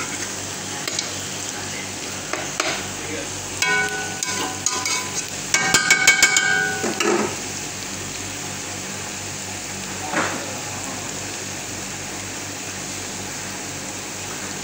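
Fish, onions and peppers sizzling steadily in a frying pan. A few seconds in comes a brief stretch of clatter and short ringing tones, then a single knock later on.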